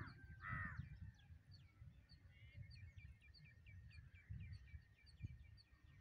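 Birds calling: two harsh, caw-like calls about half a second apart at the start, then a quick run of short, high, falling notes a few times a second. Gusts of wind rumble on the microphone.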